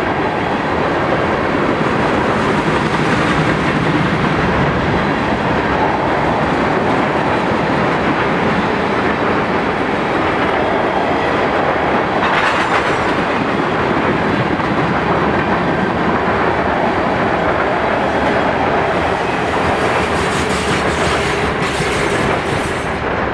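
Freight train of railroad tank cars rolling past, wheels running steadily on the rails, until the last car goes by near the end.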